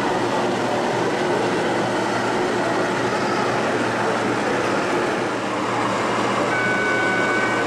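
Steady noisy din of a busy model railway exhibition hall, with model trains running on the layouts. Near the end a steady high tone sounds for about a second.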